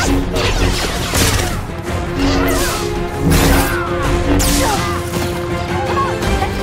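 Film battle sound mix: clone trooper blaster shots, several sharp hits about a second apart, and the zaps of a lightsaber deflecting them, over a dramatic film score.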